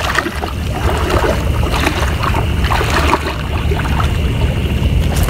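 Legs wading through floodwater, the water sloshing and splashing irregularly with each stride, over a steady low rumble.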